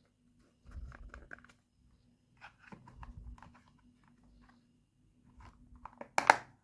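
Small plastic toy pieces being handled, with scattered light clicks and rustling and one loud sharp clack near the end.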